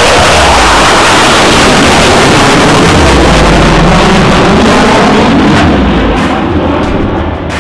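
Loud jet noise from an F-15 Eagle's twin Pratt & Whitney F100 turbofans in afterburner as the fighter pulls hard away from the listener. It eases off a little near the end.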